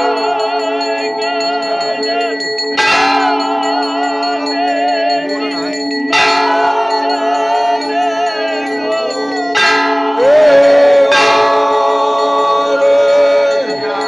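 Temple bells ringing without pause through the aarti, with a heavy strike about every three to four seconds, under devotees singing the aarti hymn.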